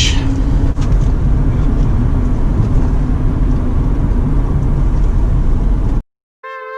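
Steady rumble of a car being driven, road and engine noise. It cuts off abruptly about six seconds in, and after a brief silence music with held tones begins near the end.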